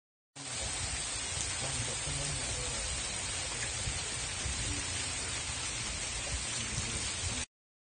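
Heavy rain pouring down steadily, a dense even hiss with a low rumble underneath. It starts abruptly about half a second in and cuts off abruptly near the end.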